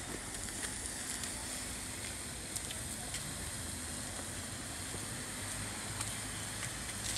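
Steady outdoor background noise: a low rumble and hiss, with a few faint clicks scattered through it.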